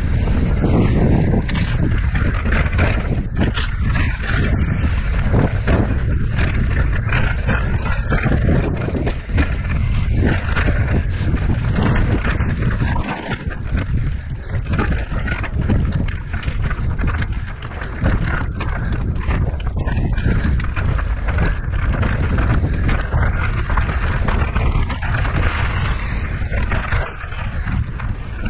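Wind buffeting the microphone over a mountain bike rolling down a rocky dirt trail, with frequent rattles and knocks as the bike rides over rocks and ruts.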